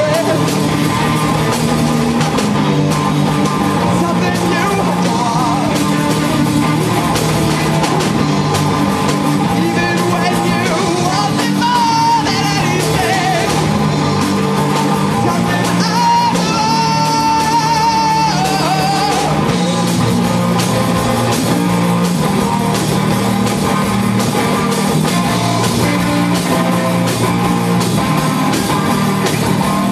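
Live rock band playing loud and steady: electric guitar over a drum kit, with a wavering, bending line near the middle.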